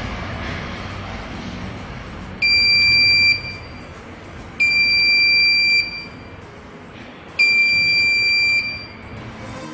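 Piezo buzzer of an Arduino IR-sensor theft alarm beeping three times, each a steady high-pitched tone about a second long with a second or so between them: the alarm going off as the IR sensor detects an object.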